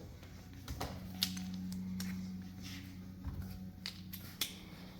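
Faint, scattered light clicks and knocks of tools and motorcycle parts being handled, over a low steady hum.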